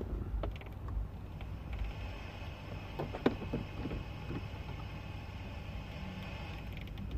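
Light handling of loose wiring under a car dashboard, with a sharp click a little after three seconds, over a steady low hum.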